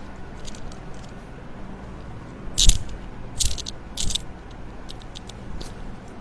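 Joints cracking during a manual chiropractic adjustment. One sharp crunchy crack comes about two and a half seconds in, then two softer crunches follow within the next second and a half, with a few faint clicks around them.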